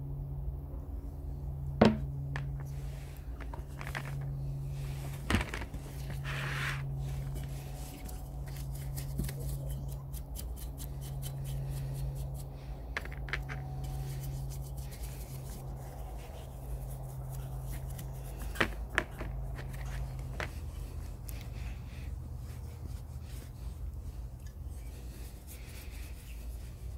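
Paintbrush scrubbing degreaser onto the metal frame of an old curling iron in a plastic tray, then a cloth rubbing it down, with a few sharp knocks of the metal piece and handling, the loudest about two seconds in and a quick pair near the end of the brushing. A steady low hum runs underneath.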